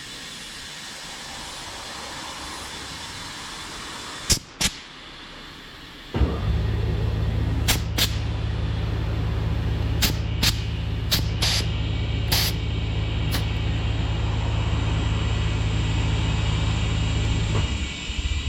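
A machine hum that starts suddenly about six seconds in, runs steadily for about eleven seconds and then cuts off, with several sharp clicks along the way.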